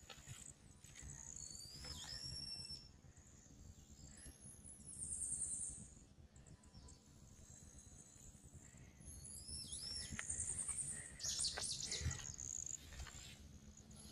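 Small birds singing and calling: high chirps, a couple of swooping whistled notes, and rapid trills about five seconds in and again from about ten seconds in, over a low background rumble.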